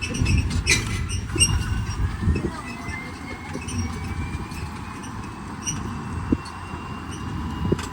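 A vehicle in motion: a steady low rumble with a thin whine that slowly rises in pitch over the first few seconds, and a few faint clicks.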